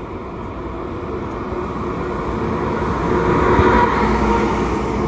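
ICE 2 high-speed train arriving at the platform, its Class 402 power car rolling past close by. The rumble and hiss grow louder, peaking about three and a half seconds in, then ease a little.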